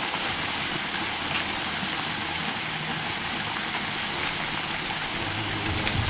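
Waterfall rushing: a steady, even roar of falling water that does not change.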